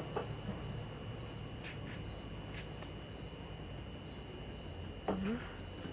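Crickets chirping in a steady, high, evenly pulsing trill.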